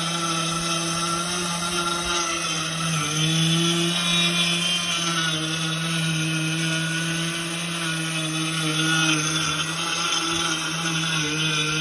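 Miller 2500 high-speed grain mill running, grinding rye into whole-grain flour: a steady motor hum with grinding noise over it, the pitch dipping slightly about three seconds in.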